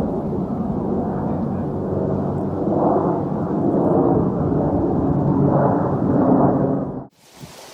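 Loud, steady low engine rumble of city traffic or an aircraft, with no hawk calls heard. It cuts off suddenly about seven seconds in, leaving wind noise on the microphone.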